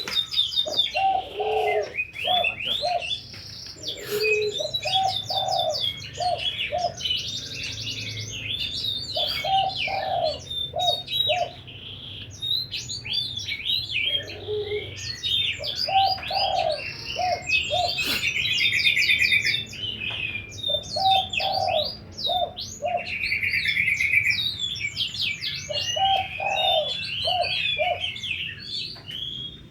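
Spotted dove (dekukur, Cirebon type) cooing: a phrase of one lower note followed by a few deep, bassy notes, repeated about every five seconds. Dense high-pitched chirping from other small birds runs throughout and is louder than the cooing.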